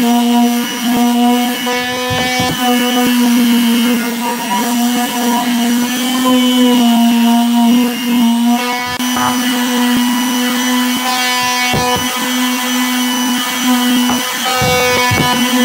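Electric palm sander (quarter-sheet orbital sander) running with a steady hum while sanding pine boards; the hum shifts briefly a couple of times as the sander is moved.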